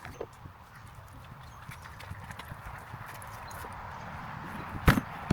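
Scattered light taps and knocks, with one sharp thump about five seconds in.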